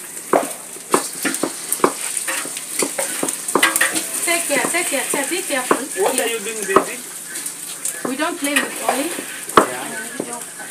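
Omena (small fish) frying in hot oil in a sufuria, sizzling steadily, while a spoon knocks and scrapes against the pot as they are stirred.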